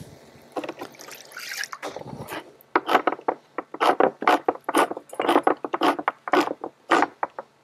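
Handheld crank can opener cutting around the lid of a metal can, a rapid clicking about three times a second as the key is turned, starting after a quieter first couple of seconds.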